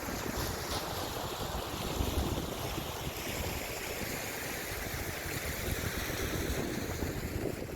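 Wind buffeting the microphone, a steady rushing noise with low rumbling gusts, slightly stronger about two seconds in.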